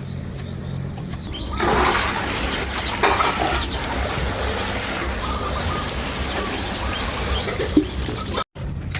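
Running water, a steady splashing rush that starts abruptly about a second and a half in and breaks off briefly near the end.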